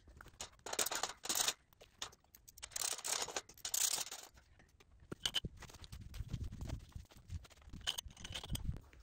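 Ratcheting wrench tightening nuts on metal fence pipe connectors: bursts of rapid ratchet clicking with metal clinks, then a few low knocks near the end.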